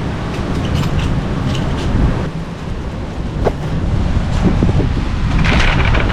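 Wind buffeting the microphone in a steady low rumble, with scattered small clicks and a brief hiss near the end.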